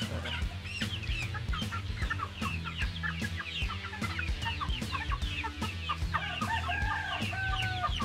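Brown-egger chickens clucking and giving short squawks while they are held for vaccination, with music with a steady beat underneath.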